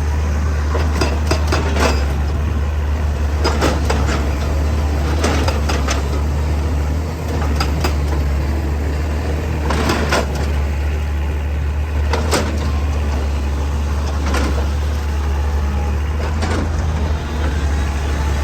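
Excavator engine running steadily under load, with irregular sharp knocks and clatters of rock and metal over it.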